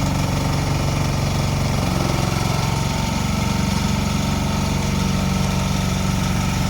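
Engine of a 1-ton mini excavator running steadily, its pitch shifting briefly about two to three seconds in.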